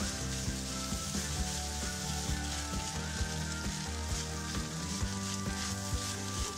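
Mango rice sizzling in a hot wok as a wooden spatula stirs and tosses it, with quick repeated scraping strokes against the pan. Background music with sustained notes plays under it.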